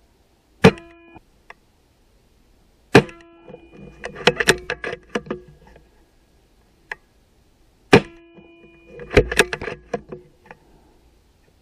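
Sub-12 ft-lb air rifle firing pellets at a target. A few sharp shots, each with a brief ring after it, and between them quick runs of mechanical clicks and clacks as the rifle is cocked and reloaded.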